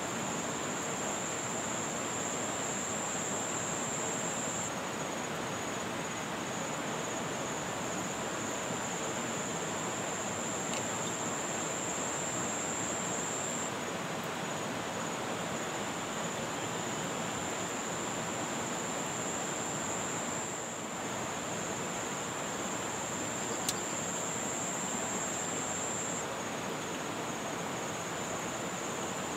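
Steady rush of a muddy, fast-flowing river, with an insect's continuous high-pitched trill over it that swells and fades a little now and then. A single light tick late on.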